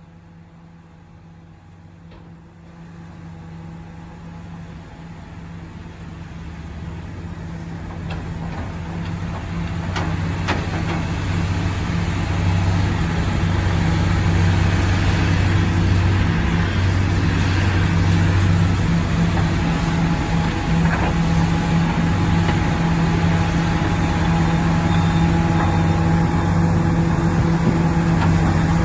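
Komatsu PC400 hydraulic excavator's diesel engine running steadily under load with a low hum. It grows louder over the first dozen seconds and then holds steady, with a couple of sharp knocks about ten seconds in.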